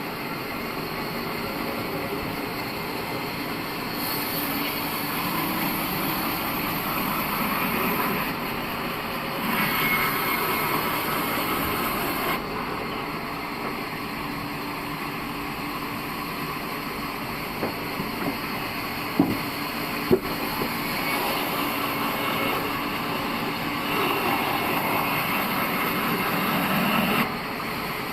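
Band sawmill running and sawing a dry log into lumber: a steady machine noise whose hiss swells and eases every few seconds, with a few sharp knocks about two-thirds of the way through.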